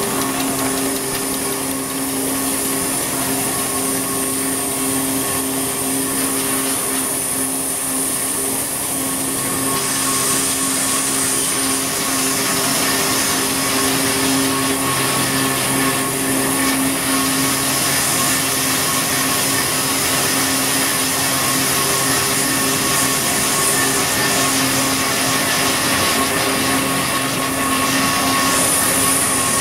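Paper hand towel converting machine with a laminating roller unit running at production speed: a steady mechanical whir with a constant hum and whine, getting a little louder about ten seconds in.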